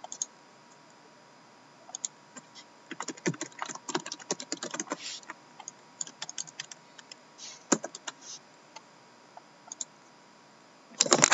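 Typing on a Lenovo laptop keyboard in short spurts. There is a quick run of keystrokes about three to five seconds in, then scattered single clicks, and a louder clatter near the end.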